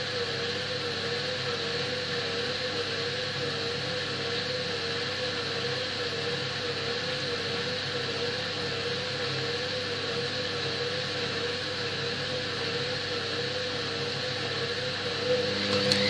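Hoover front-loading washing machine running on a delicate cycle: a steady hum with a whine that wavers up and down evenly. Near the end a louder motor sound starts up.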